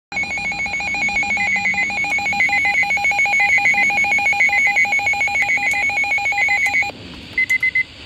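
Midland Public Alert weather radio sounding its alert alarm for an incoming warning: a loud, rapid warbling electronic beep that stops about seven seconds in. Short groups of four high beeps follow, about once a second.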